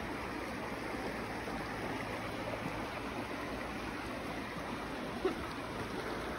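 River water rushing steadily over and around rocks, the river running fairly high with spring flow.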